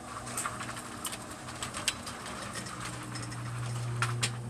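Motorized roll-down hurricane shutter running: a steady low motor hum that grows louder near the end, with scattered clicks from the aluminium slats.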